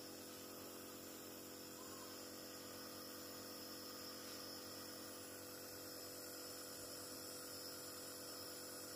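Faint, steady electrical hum with a light hiss, unchanging throughout.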